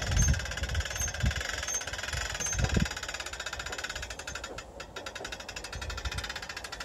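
Hand-cranked winch of a wind-up telescopic trailer mast, converted from a floodlight mast, clicking rapidly and evenly as it is wound to raise the mast, thinning out after about three seconds. A few low thumps come in the first few seconds.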